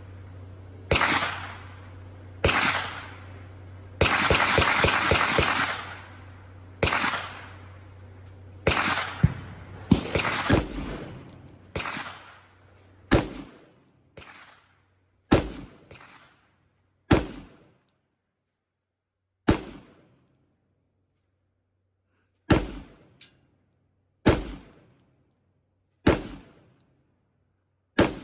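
Gunshots at a shooting range: single shots roughly one to two seconds apart, with a quick burst of rapid shots about four seconds in, then slower, more widely spaced shots in the second half.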